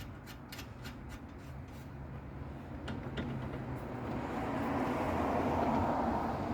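A few light metal clicks as parts are handled in the first second, then a passing vehicle's noise rises, is loudest near the end and begins to fade, over a steady low hum.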